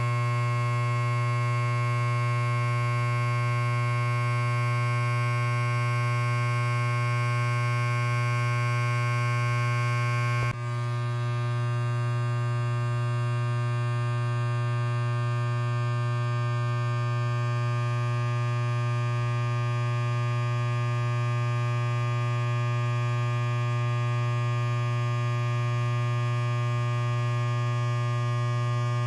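Electric hair clipper running idle with a steady buzz and a strong low hum, not cutting hair. The buzz dips briefly about ten seconds in, then carries on.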